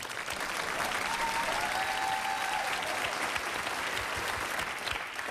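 Studio audience applauding, a dense patter of many hands clapping, with a voice calling out briefly about a second in.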